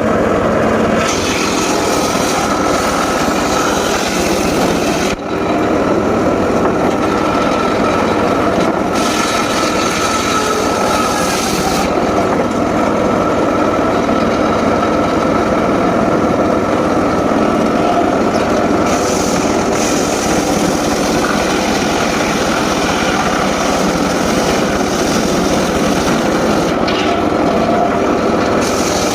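Homemade circular saw rig running continuously and cutting teak wood: a loud steady machine drone, with a brighter, hissier cutting sound that comes and goes several times. The level dips briefly about five seconds in.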